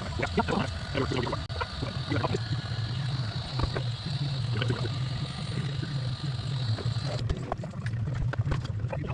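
Steady low hum under scattered light clicks and knocks from handling small parts and wiring, busiest in the first couple of seconds; a faint high hiss cuts off about seven seconds in.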